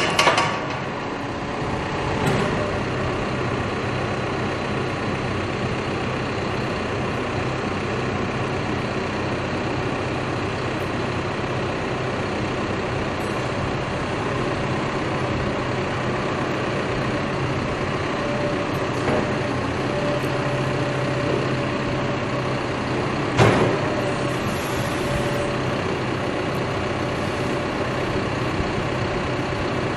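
Cat backhoe's diesel engine running steadily, with a sharp knock at the start, another about two seconds in, and a louder one about 23 seconds in. A faint steady whine rides over the engine for several seconds past the middle.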